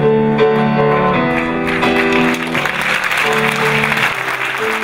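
Piano playing the closing notes of a song, then audience applause breaking out about two seconds in while the piano keeps playing underneath.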